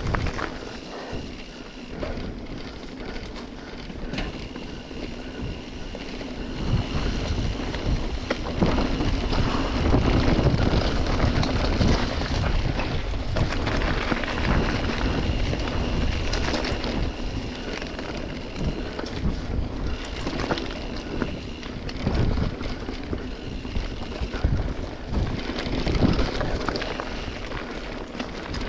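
Mountain bike riding along a dirt trail: tyres rolling and the bike knocking and rattling over roots and rocks, with wind on the microphone. It gets louder about a third of the way in and eases off again past the middle.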